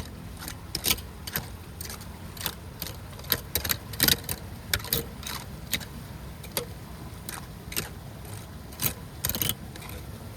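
Debris being raked or pulled from a clogged drain: a string of irregular sharp scrapes, clatters and splashes over a steady low rush.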